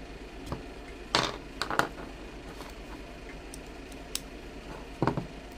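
Topeak Hexus X multi-tool clicking and clacking as it is handled and its second tire lever is taken off: a handful of short sharp clicks, the loudest about a second in, two more just before two seconds and another near the end.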